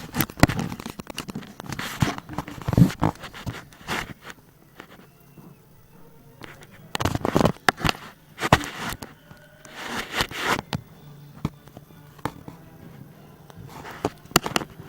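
Plastic Lego bricks clattering and clicking as pieces are rummaged through and snapped together, in irregular bursts with pauses between.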